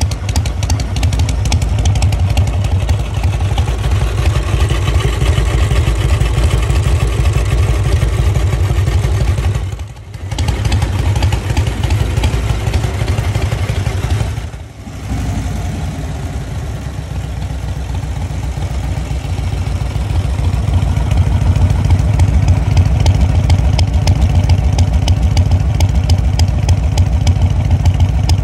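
1947 Harley-Davidson Knucklehead's overhead-valve V-twin running at idle with a steady, pulsing exhaust beat. The level dips briefly twice, then rises slightly in the second half.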